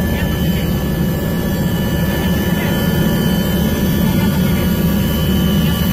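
Helicopter cabin noise: the engine and rotor running steadily, a deep rumble with a thin, high turbine whine over it.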